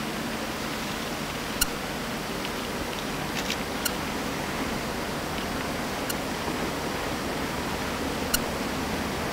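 Steady rushing noise of a Great Lakes bulk freighter passing through broken river ice, with a handful of short sharp ticks scattered through it.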